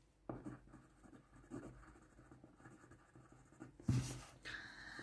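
Faint scratching of a pen writing on paper on a table, with a sharper knock about four seconds in and a breath just after it.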